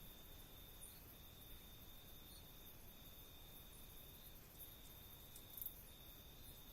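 A night insect giving a faint, steady, high-pitched trill in long stretches of about one to one and a half seconds with brief breaks between them, over a low background hiss with a few faint high ticks from other insects.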